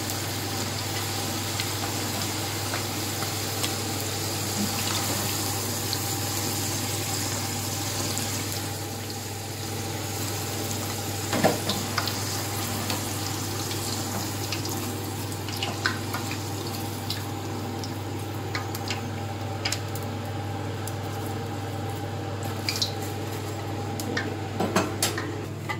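Potato fries sizzling as they deep-fry in hot oil in a karahi, a steady hiss that thins out in the second half, with scattered clicks of a slotted metal spoon against the pan as the fries are lifted out.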